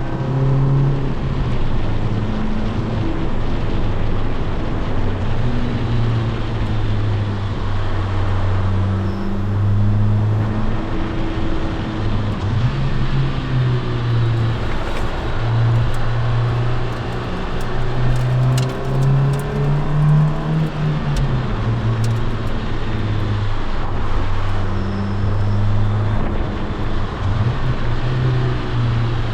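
Honda S2000's inline-four engine running under way, its note rising under acceleration and dropping back again and again through gear changes and lifts, over steady road noise.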